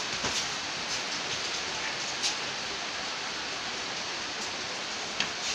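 Steady rain falling, an even hiss with a few faint taps.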